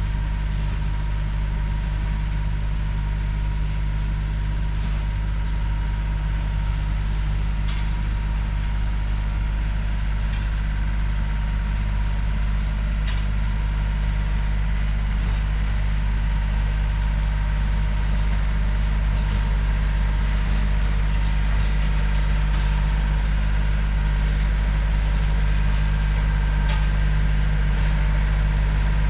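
Tractor engine running steadily under load, driving a PTO rototiller that is tilling mulch and compost into the soil.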